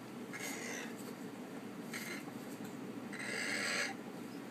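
Severe Macaw giving three hoarse, raspy bursts while mounting a plush toy monkey, a springtime mating display; the last burst, a little after three seconds in, is the longest and loudest.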